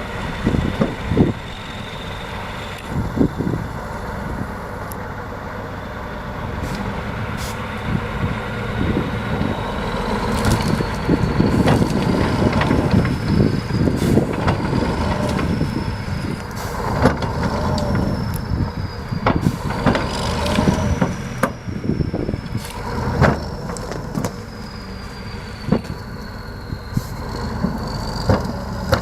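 T-150K wheeled tractor's diesel engine running steadily. A high whine rises and falls over it, and frequent sharp knocks and rattles come throughout.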